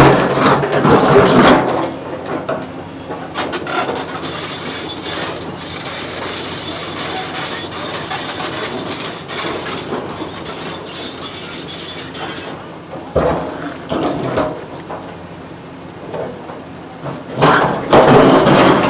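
Excavator working on track demolition: the diesel engine runs steadily while steel track material clanks and scrapes. It is loudest in the first second and a half and again near the end, with scattered knocks in between.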